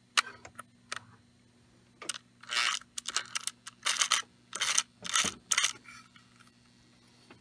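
Lionel 249 locomotive's motor under power from test leads, giving a steady low hum with irregular clicks and short scratchy bursts as it tries to run but doesn't turn over properly. The owner puts it down to brushes that likely need cleaning.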